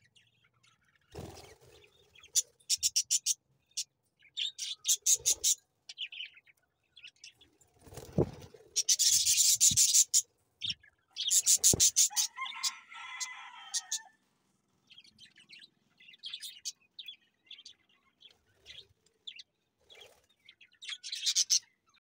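Budgerigars chirping in quick high-pitched trains again and again, with a lower warbling call about halfway through and a couple of dull knocks.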